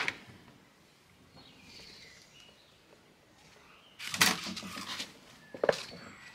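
Patio door handle turning with a click, then faint bird chirps outside. About four seconds in, rubber clogs scuff on stone tiles as feet slide into them, with a couple of sharp knocks of the shoes on the tiles.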